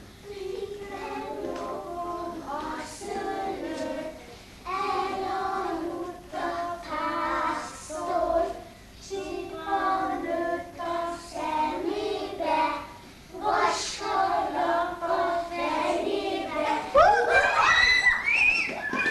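A group of small children singing a song together in phrases. Near the end the singing breaks into loud, high, rising shrieks from the children.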